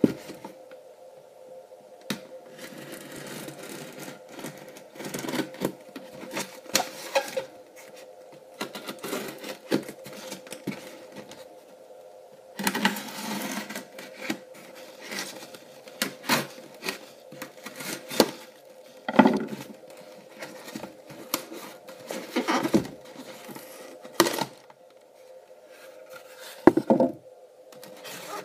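A styrofoam shipping box being cut open along its lid seam with a knife: irregular scraping and squeaking of foam with sharp knocks, then plastic wrapping rustling as the wort pump inside is handled. A faint steady hum runs underneath.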